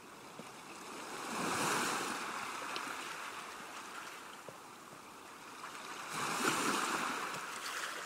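Ocean surf washing onto a beach: one wave swells and breaks about a second and a half in, and another near the end.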